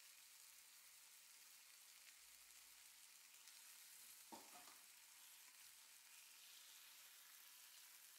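Chicken breasts frying in oil in a nonstick pan, a faint steady sizzle, with a short knock of a fork against the chicken and pan about four seconds in.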